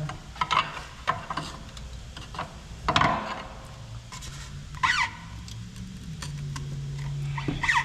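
Steel pry bar levering against metal suspension parts: several short metal-on-metal scrapes and clanks with brief squeaks, the loudest about three seconds in.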